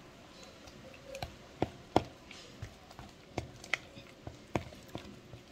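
Irregular light knocks and clicks of kitchen things being handled, about ten in all, with one sharper knock about two seconds in.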